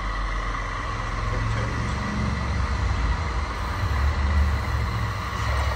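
Model RC construction truck running: a steady low engine-like rumble with a thin steady whine over it, swelling a little about four seconds in.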